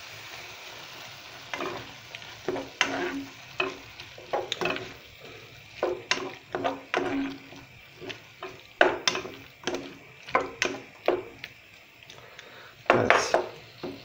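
Wooden spoon stirring chopped tomatoes and onions in a pot, irregular knocks and scrapes against the pot with a short ringing note, over a low sizzle of the vegetables frying in oil. One louder knock near the end.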